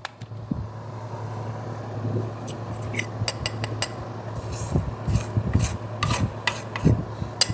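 Hands working at the excavator's parts: rubbing and scraping, with an uneven run of short, light clicks and ticks, busiest in the second half, over a steady low hum.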